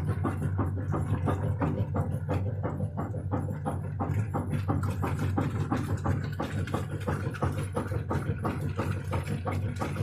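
Washing machine running: a steady low motor hum with a rapid, even knocking, about four to five knocks a second.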